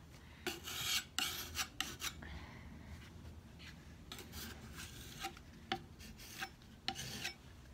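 Metal putty knife scraping and smearing thick paint across a painted wooden drawer front, in a run of short strokes with brief pauses between them.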